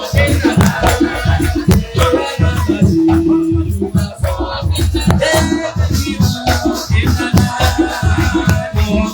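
Loud upbeat music with a heavy, fast-repeating bass beat and a shaker rattling along.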